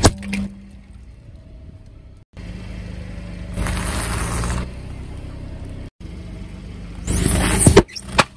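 Car tyre rolling slowly over asphalt and crushing things, in three short cut-together takes. There is a sharp crack right at the start, a noisy crunch about halfway as the tyre goes over crunchy bars, and the loudest crackling crush near the end as it flattens a green plastic item.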